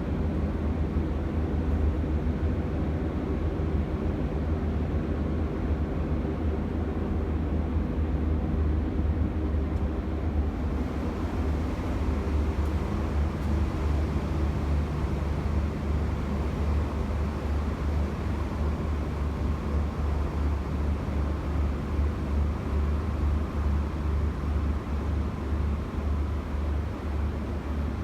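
Boat's engine running with a steady low drone. About ten seconds in, a broad hiss rises beneath it.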